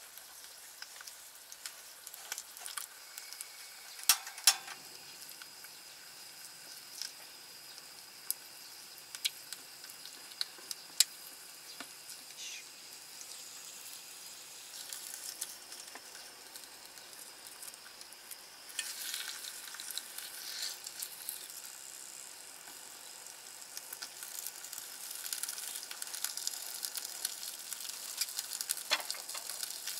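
An egg sizzling as it fries in a small electric cooker pan, with scattered sharp clicks of utensils against the pan. The sizzling grows louder in the second half, once sausages are in the pan with the egg.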